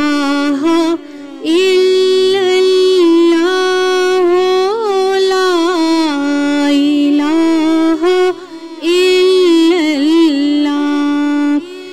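Islamic lullaby (lori) sung by a single voice in long held, gliding notes with melismatic turns, broken by short pauses about a second in, around eight seconds in, and near the end.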